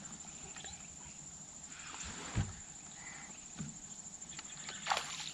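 Quiet open-air ambience around a fishing boat: a steady faint high whine with scattered soft clicks and knocks from the boat, the loudest a dull thump about two and a half seconds in.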